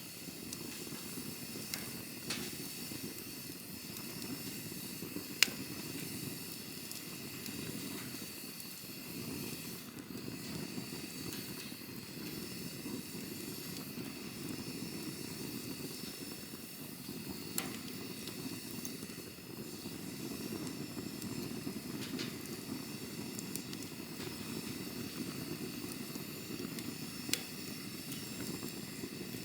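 Campfire burning: a steady low rush of flames with scattered sharp crackles and pops, the loudest one about five seconds in.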